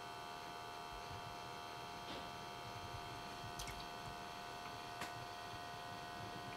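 Faint steady electrical hum made of several fixed tones, with a few soft clicks.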